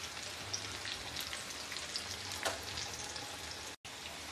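Chicken pieces frying in hot oil in an aluminium kadai, nearly done: a steady sizzle with small crackling pops. It cuts out for an instant a little before the end.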